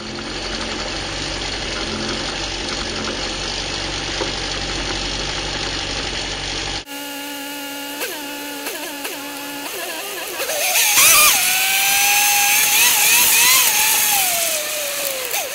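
A car's engine and road noise at a steady cruise, then a sudden cut to Locost race cars on the grid: engines idling with a few quick throttle blips. About three-quarters through, engines rev hard and climb in pitch as the field pulls away from the start, the loudest part, with the pitch falling near the end.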